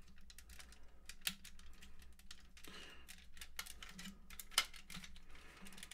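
Scattered small clicks and taps of hard plastic parts on a Transformers action figure being handled and fitted back together, with one sharper click about four and a half seconds in.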